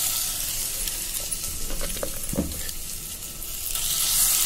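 Ground cluster-bean chutney paste sizzling in hot oil and tempering in a non-stick pan as it is stirred, with a few soft knocks about two seconds in. The sizzle grows louder near the end.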